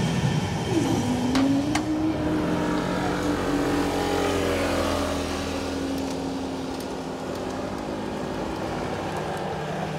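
Level crossing barrier mechanism running as the booms raise: a steady motor hum that starts about a second in with a brief dip in pitch, with two sharp clicks soon after.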